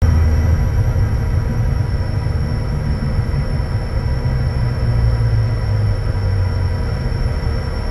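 Bombardier Challenger 350 business jet's Honeywell HTF7350 turbofan engines running: a steady deep rumble with constant high-pitched whines over it.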